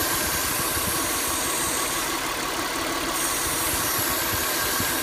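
Car engine idling with a steady hiss over it from a vacuum leak: air being drawn into the intake system where it shouldn't.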